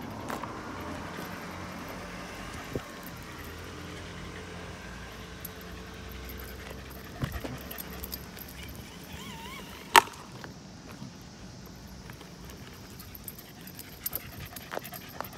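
Shiba Inu out on a leashed walk: a low steady rumble for the first several seconds, then scattered sharp clicks and knocks, the loudest a single click about ten seconds in, just after a short wavering squeak.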